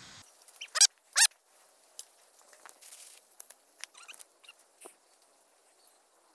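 A tree squirrel calling: two short, sharp, loud calls about a second in, followed by scattered faint clicks and ticks.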